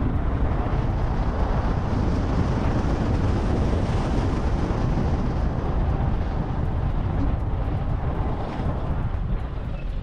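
Porsche Cayenne on the move: a steady rumble of road and wind noise.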